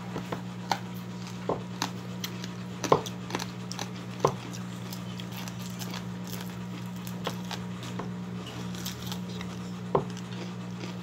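Close-up eating sounds of a person chewing fried fish by hand: scattered mouth smacks and small clicks, with a few sharper ones about three and four seconds in and near the end. A steady low hum runs underneath.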